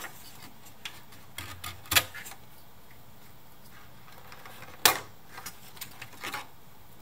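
Plastic ejector latches of a computer memory slot clicking as a memory module (DIMM) is unlatched and pulled from its motherboard slot: two sharp clicks, about two and five seconds in, with lighter clicks and handling rustles between.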